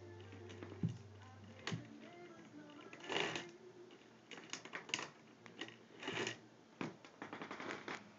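Strings being cut out of a Babolat tennis racket by hand: irregular clicks and snaps of the string, with short rustling bursts about three and six seconds in.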